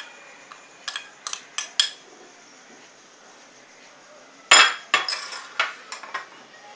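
A metal spoon and steel bowls clinking as gram flour is scooped and measured: four light clinks in the first two seconds, then a loud clank of steel on steel about four and a half seconds in, followed by a run of quicker smaller taps.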